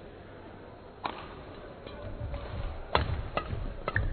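Badminton rackets striking the shuttlecock in a doubles rally: the serve about a second in, then sharp hits near three seconds and twice near the end. Players' feet thud on the court floor between the hits.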